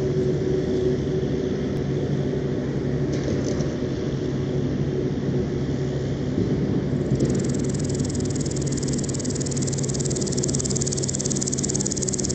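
Grasshopper stridulating: a high, fine, dense buzz that starts abruptly a little past halfway and then holds steady, over a steady low rumble.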